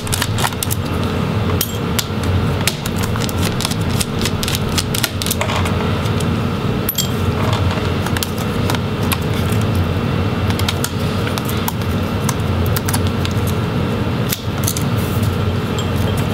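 Many small, irregular clicks and taps from a screwdriver turning out screws and from fingers handling a laptop's I/O board and plastic palm-rest case, over a steady low rumble.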